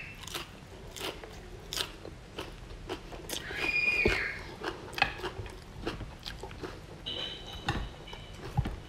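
Close-miked chewing of a fresh raw green sprig, likely purslane: a string of crisp crunches and wet mouth clicks. Twice a brief high squeak, about three and a half seconds in and again about seven seconds in.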